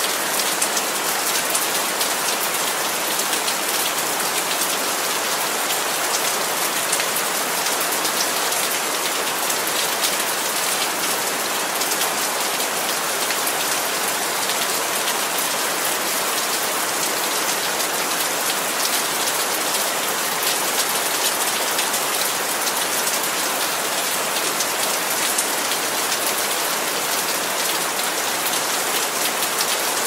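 Steady rain falling, an even hiss dotted with many small drop impacts.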